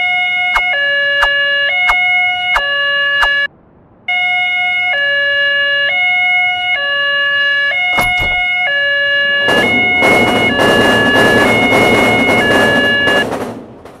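Railroad crossing warning signal: two tones trading back and forth, high-low, about once a second like a two-tone siren, with short ticks between them. It breaks off briefly near the start, then resumes. Near the end a train passes with a loud rushing clatter over the alarm, and then both fade out.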